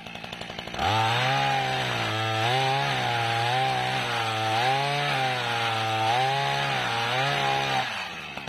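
Small engine of a motorized egrek pole pruner revving up about a second in and running at high speed, its pitch rising and dipping several times under cutting load, then dropping back to idle near the end.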